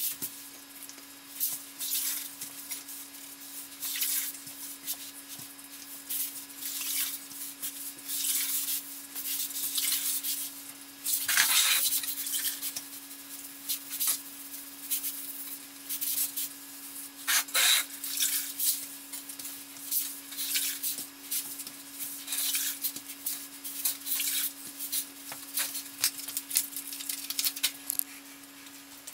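Quick, irregular scratchy swishes of a wet grout sponge rubbed across freshly grouted ceramic floor tiles, two of them louder about a third and two-thirds of the way in, over a steady low hum.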